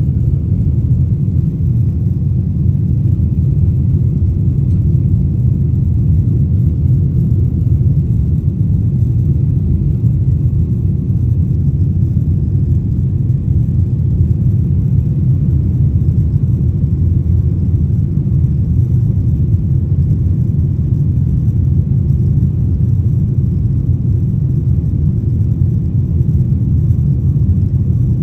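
Steady, unchanging low rumble of an airliner's jet engines and airflow, heard inside the passenger cabin.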